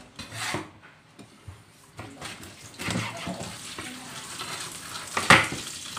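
Kitchen tap running into the sink from about two seconds in, with a sharp knock a little after five seconds, the loudest sound.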